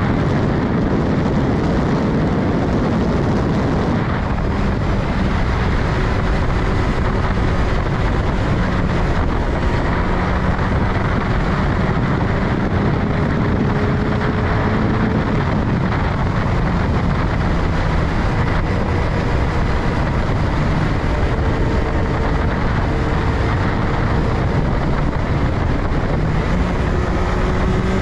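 Wind rushing over the microphone of a moving motorcycle, a 2022 Yamaha XSR900, with its three-cylinder engine running steadily underneath. The engine note rises near the end as the bike speeds up.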